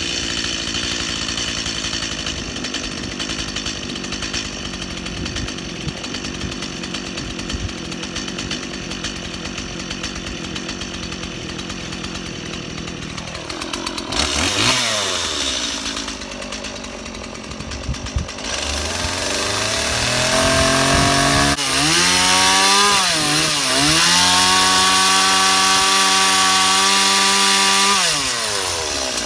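Chainsaw running: steady for the first dozen seconds, then revving down and up, then held at high revs with two brief dips before dropping off near the end. The owner says this saw keeps bogging out and needs a tune-up.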